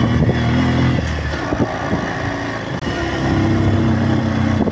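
Motorcycle engine running while being ridden, easing off about a second and a half in and picking up again about three seconds in.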